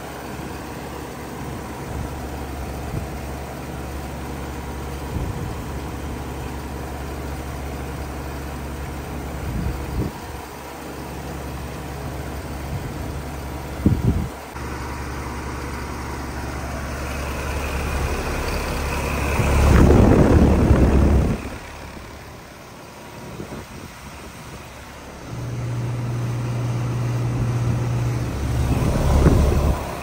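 Carrier Comfort (25HCE) 3-ton heat pump outdoor unit running in heat mode: a steady low hum from its LG scroll compressor and condenser fan. About two-thirds of the way through comes a loud rushing burst of noise lasting about two seconds.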